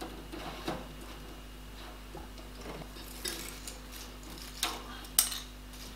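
Dried wood ear fungus pieces clicking into a glass jar and the plastic mesh sheet of a food dehydrator tray being handled: a few scattered light clicks and rattles, the sharpest near the end.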